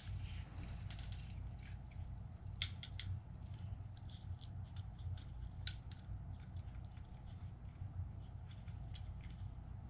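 Light clicks and rustles of small plastic parts and wires being handled as an opened SJRC F11 drone remote controller is reassembled, with a few sharper clicks at about two and a half, three and nearly six seconds in, over a steady low hum.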